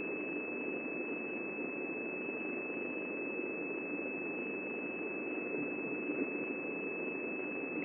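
A steady high-pitched electronic tone held over an even, constant hiss that sounds narrow and thin.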